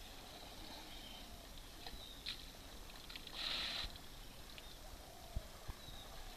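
Faint riverside ambience with the soft water sounds of an Asian elephant drinking, its trunk dipping in the river and lifting to its mouth. A short hiss a little past halfway, and a few soft thumps.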